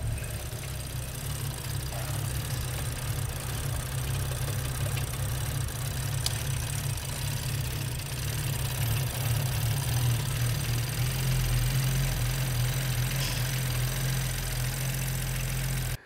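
BMW 335i's N55 turbocharged straight-six idling roughly, a steady low engine drone with an uneven, fluctuating beat. The rough idle came on together with an intermittent air mass system plausibility fault.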